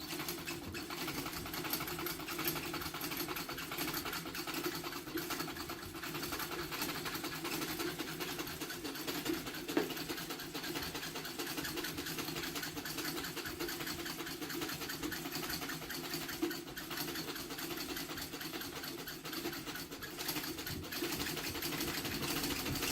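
Old Singer treadle sewing machine running fast after oiling, its mechanism giving a steady rapid clatter that starts suddenly. It sounds like it is running well, "pretty good" and "going fast".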